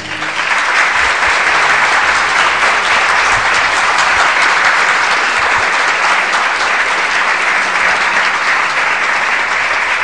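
Audience applauding: dense, steady clapping that starts as the guitar song stops and eases slightly near the end.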